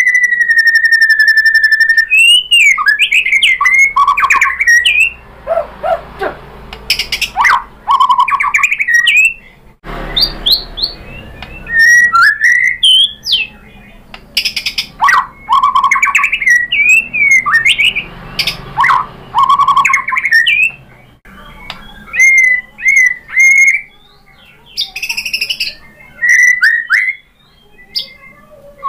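White-rumped shama (murai batu) singing in full, agitated voice: a long held whistle, then fast, varied phrases of loud whistles, pitch glides, trills and harsh rattling notes, with mimicked fill-in phrases, broken by short pauses.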